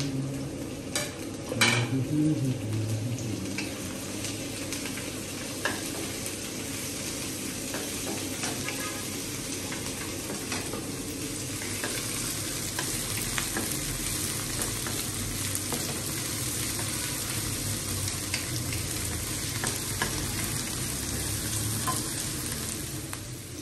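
Sliced onion and vegetables sizzling in hot oil in a wok while being stirred with a wooden spatula. Scattered clicks and scrapes of the spatula against the wok run through it, with two louder knocks about a second or two in.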